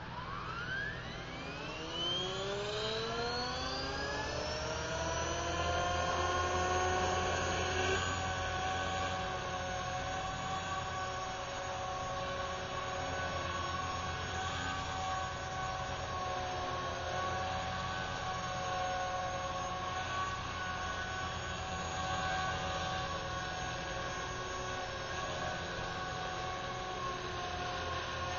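Electric Align T-Rex 450 SE V2 RC helicopter spooling up: the whine of its brushless motor and drive gears climbs steeply in pitch over the first five seconds or so, then holds a steady pitch at flying rotor speed.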